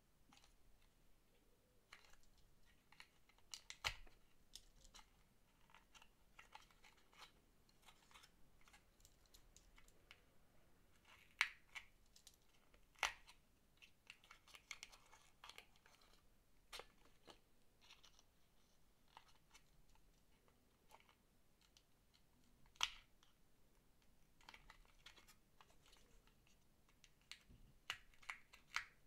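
Quiet clicks, taps and crinkles of a small paperboard candy box being poked and pressed with a pen at the cut-in tab on its end, with a few sharper clicks scattered through.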